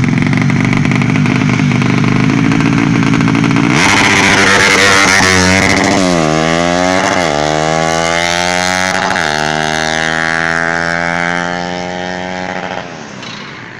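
Motorcycle engine running loudly, then, from about four seconds in, revved hard so that its pitch climbs and falls back several times. It drops away near the end.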